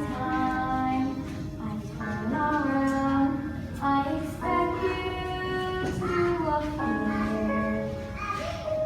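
Children's voices singing a stage-musical song over instrumental accompaniment, in long held notes that change pitch every second or so.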